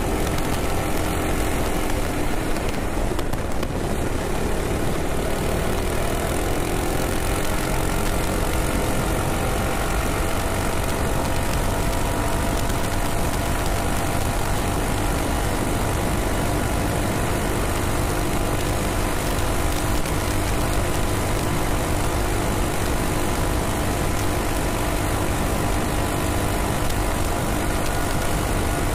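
Ghost 212 single-cylinder engine on a minibike running hard under full throttle, its pitch climbing a few seconds in and then holding steady, with wind rushing over the microphone near the bike's top speed.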